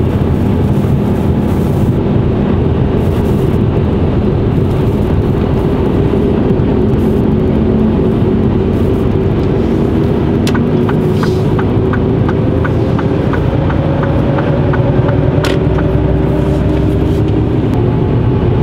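Mercedes-Benz Actros truck's diesel engine running under way, heard from the cab, its note rising slowly in pitch over the second half as the truck accelerates. A little past halfway a turn-signal relay ticks evenly, a few times a second, for about five seconds.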